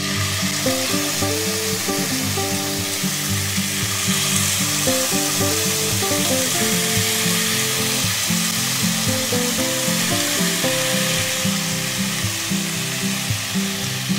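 Marinated chicken kabab skewers frying in hot oil in a nonstick pan: a steady sizzle that starts suddenly as the skewers go in, over background music.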